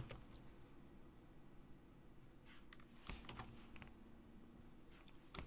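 Faint computer keyboard keystrokes: a handful of light, scattered clicks over a low steady hum.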